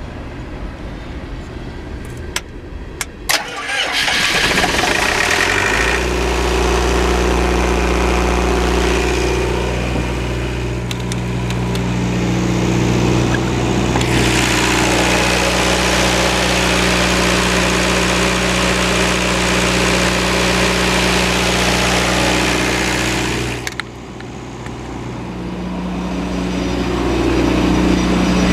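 Four-cylinder Perkins 4.236 diesel engine of a 35 kW generator set, preceded by a few clicks, is cranked and catches about four seconds in. It then runs steadily at constant speed. Near the end the level dips suddenly and builds back up.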